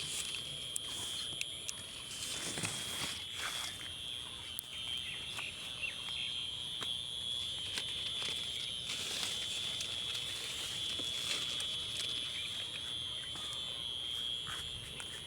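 Outdoor birdsong: scattered short bird chirps and calls over a steady high-pitched drone.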